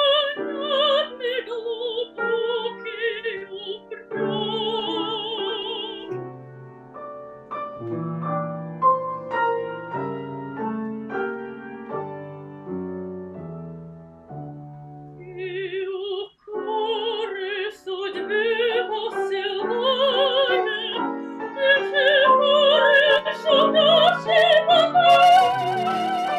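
A soprano sings an operatic aria in Russian, with wide vibrato, over piano accompaniment. After about six seconds the voice drops out and the piano plays alone for some ten seconds. Then she comes back in and grows louder and higher toward the end.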